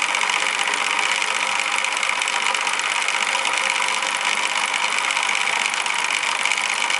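Antique water-cooled Stirling hot-air engine, heated by a butane flame, running steadily with a fast, even mechanical clatter.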